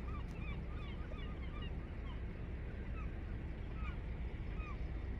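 A flock of birds calling: many short, overlapping calls that bend up or down in pitch, scattered throughout, over a steady low rumble of wind on the microphone.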